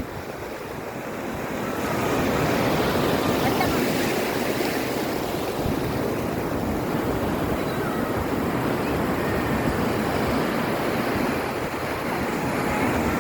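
Rough sea surf: waves breaking and washing in as a continuous rush of water, growing louder about two seconds in and then holding steady.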